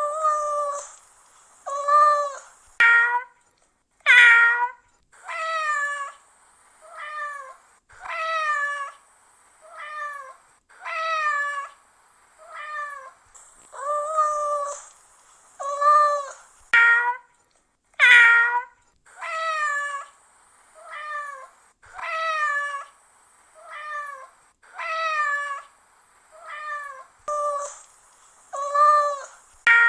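A cat meowing over and over, some two dozen separate meows about a second apart, many dropping in pitch at the end. A faint steady hiss sits between the calls.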